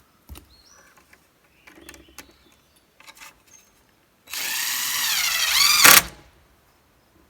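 A few light knocks, then a power drill driving a screw for under two seconds, its motor pitch dipping and rising as the screw seats before it stops.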